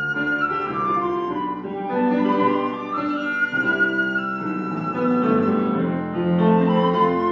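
Flute and piano duet: a Johannes Hammig cocuswood flute plays a melody of held notes over chords from a Bösendorfer grand piano.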